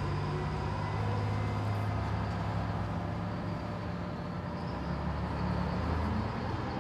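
Steady interior ride noise of a city transit vehicle: a low engine hum with road rumble.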